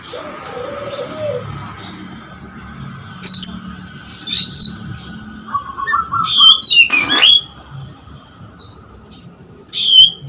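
Oriental magpie-robin singing hard in separate loud phrases of sharp, high whistles and chirps. Its song is laced with the lovebird-style chatter it was trained to copy.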